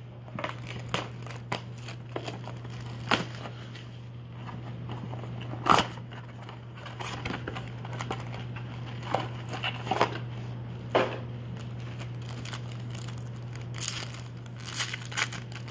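Handling of a cardboard trading-card box and its foil-wrapped card packs: scattered rustles and sharp snaps, then crinkling as a pack wrapper is torn open near the end.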